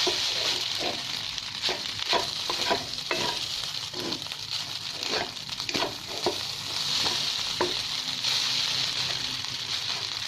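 Fried rice sizzling in a hot pan as it is stirred and scraped, with frequent clicks and scrapes against the pan that thin out near the end.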